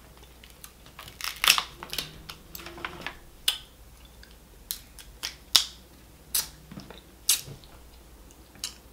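King crab leg shell cracking and snapping as it is broken apart by hand: a string of sharp separate cracks and clicks, about ten, the loudest about a second and a half in and again about five and a half seconds in.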